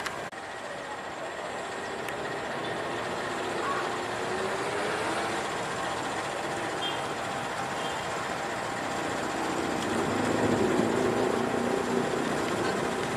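Diesel locomotive engine running steadily close by, getting somewhat louder near the end, with faint voices of the crowd underneath.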